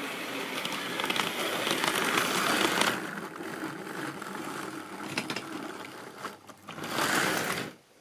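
Model railway electric locomotive running past close by on the track: a whirring, rattling mechanical run with a string of sharp clicks. It swells again near the end and cuts off suddenly.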